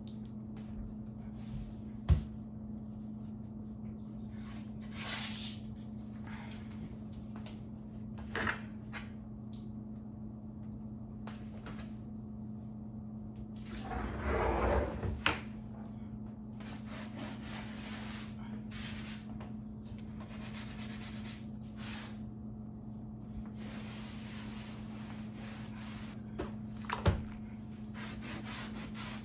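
Household items being handled during kitchen cleaning: a few sharp knocks, a short hiss and a longer scuffing, splashy burst, spread out over a steady low hum.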